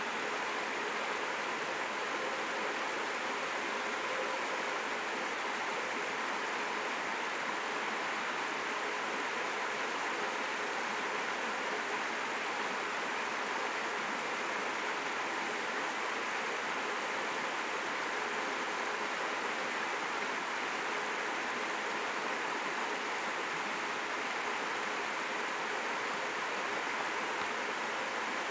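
Steady rushing of a nearby stream, an even hiss of water with no change throughout.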